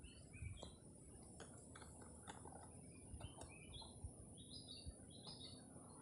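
Faint outdoor ambience of small birds chirping: short, high notes scattered through, coming more often in the second half, over a low rumble and a steady high hiss.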